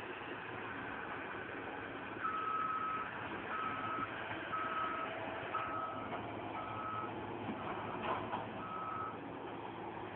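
Caterpillar 315 excavator's travel/back-up alarm beeping, a single-pitched beep about once a second starting a couple of seconds in, over the steady running of its diesel engine.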